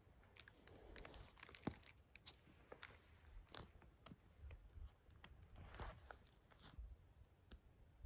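Near silence, with faint scattered clicks and crackles.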